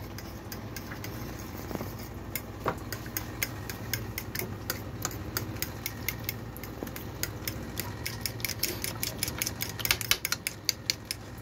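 Metal spoon beating yoghurt in a glazed ceramic dish: a quick, uneven run of clicks as the spoon strikes the dish, busier near the end, over a low steady hum.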